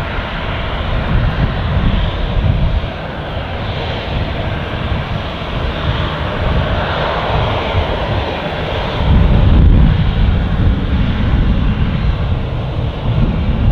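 Boeing 737-800's CFM56 turbofan engines running at taxi power: a steady jet hiss and rumble, with the low rumble swelling louder about nine seconds in.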